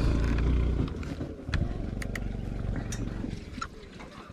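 Motorcycle engine running with a steady low note, dropping back to a quieter, uneven low rumble about a second in. A few sharp clicks follow.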